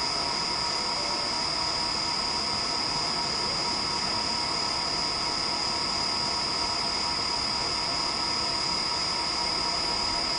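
CNC wood lathe running steadily: an even machine noise with a constant high-pitched whine.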